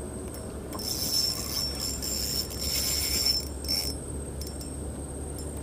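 Small bell on a fishing rod tip jingling in a few shaky bursts over about three seconds, the bite-alarm sign of a fish tugging at the bait, which the angler takes for a fish.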